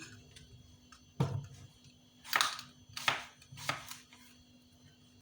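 A low knock, then three short scuffing sounds of kitchen items being handled while a home remedy is prepared.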